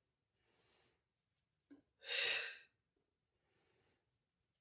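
A woman breathing in time with ab curls: one strong, breathy exhale about two seconds in as she curls up, with fainter inhales before and after it.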